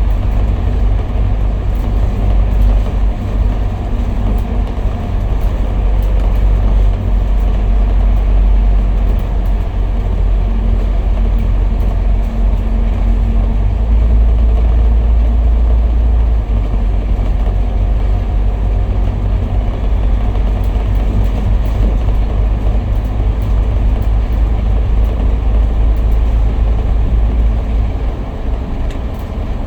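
A Citybus bus heard from on board while under way: its engine runs with a steady low rumble under continuous road and wind noise, with faint light rattles and ticks.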